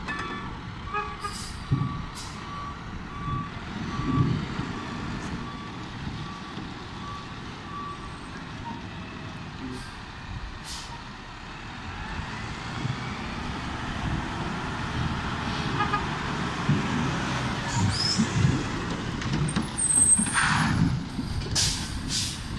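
Garbage truck's reversing beeper sounding about once a second for several seconds, then its engine rising in level as the truck pulls up close, with air-brake hisses near the end.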